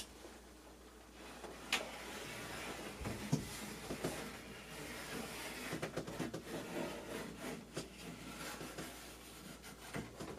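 A line being drawn on ceiling drywall along a clamped board straight edge: a faint, steady scratching of the marking tool on the board's paper face, with a few light knocks.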